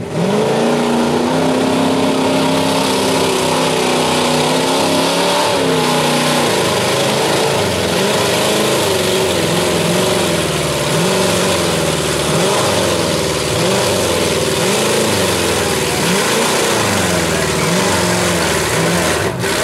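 Off-road vehicle's engine at high revs during a mud drag run, its pitch climbing and holding, then surging up and down repeatedly as the throttle is worked and the tyres spin and bite in the mud.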